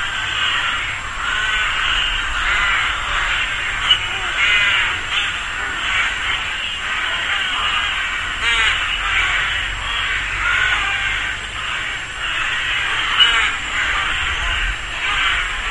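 Rook colony: many rooks cawing over one another in a dense, continuous chorus.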